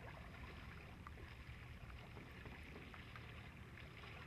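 Faint water lapping and splashing against the hull of a sailing boat under way, with small scattered splashes over a steady low rumble.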